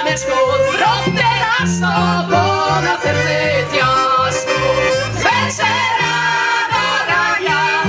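Live Lemko folk song: two women's voices singing together, accompanied by violin, accordion and a double bass playing a pulsing bass line.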